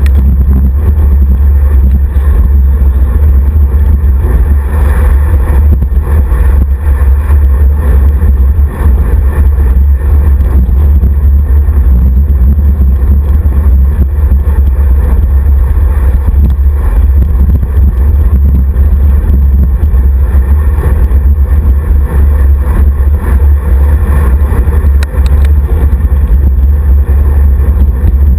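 Wind buffeting a handlebar-mounted camera's microphone as a road bike rides at speed: a loud, steady low rumble that never lets up.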